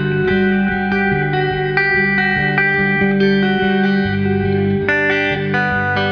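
Instrumental background music led by guitar, a run of plucked notes over sustained low tones.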